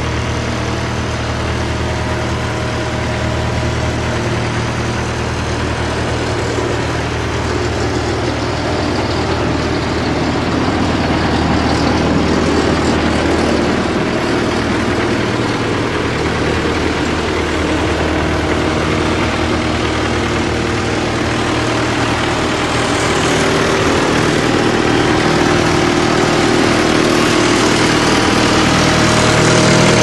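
GreenMech wood chipper's engine idling steadily, growing slightly louder near the end.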